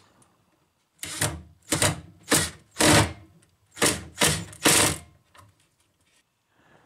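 Ryobi cordless drill-driver driving a wood screw through a 2x3 rail into a plywood side panel, in about seven short trigger bursts with a brief pause near the middle.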